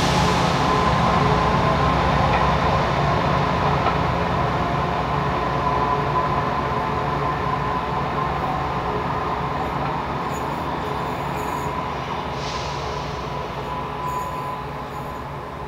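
Class 207 'Thumper' diesel-electric multiple unit running, its English Electric diesel engine droning steadily and fading as the train draws away, with a thin steady high tone over it and a short hiss of air near the end.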